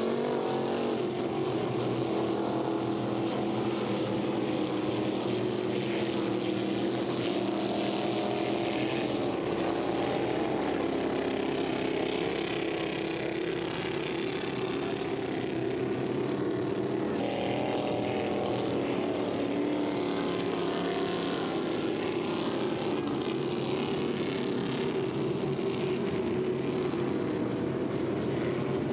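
High-powered racing ski boats' engines running flat out, a steady loud drone whose pitch drifts as the boats pass, with a hiss over it.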